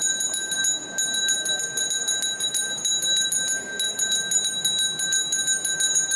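Puja hand bell rung rapidly and without pause, its steady ringing tone renewed by quick repeated strikes, as in the ritual worship of the cannons.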